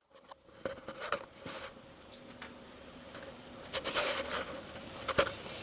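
Scattered light clicks, taps and rustles, busier in the second half, over a faint steady hum.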